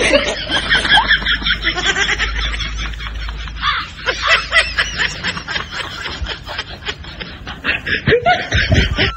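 Snickering, giggling laughter in quick repeated pulses, a laugh track laid over the scene.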